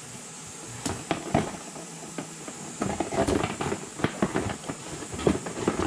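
Rummaging in a cardboard box: irregular rustling, knocks and clicks as parts and tubing are handled, growing busier about three seconds in.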